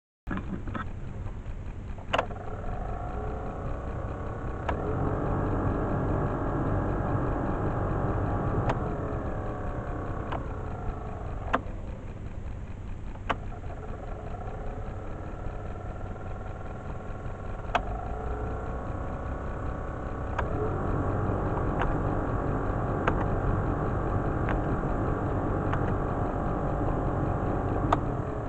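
Suzuki Every's blower (heater fan) motor running with an abnormal whine over a steady low hum. Its pitch rises a few seconds in, falls around the middle and rises again, with sharp clicks now and then. The noise comes from a blower motor that turns out to be badly worn inside.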